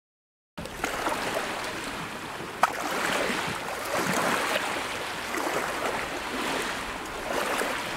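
Rushing water like surf or a stream: a steady wash of noise that swells and eases, starting suddenly about half a second in, with one sharp click about two and a half seconds in.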